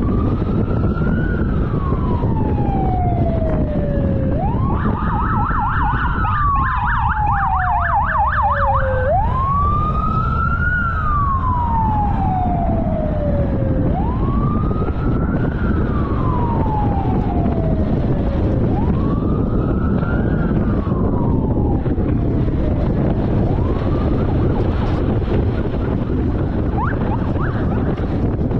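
Police siren in a slow wail, rising and falling about every five seconds, with a fast warbling yelp laid over it for a few seconds near the start; the wails grow fainter toward the end. Steady road noise from the moving car runs underneath.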